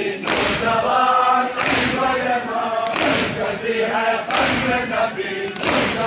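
Men chanting a noha (mourning lament) together in unison, beaten out by chest-beating (matam): a heavy slap of many hands on chests about every second and a half, five times.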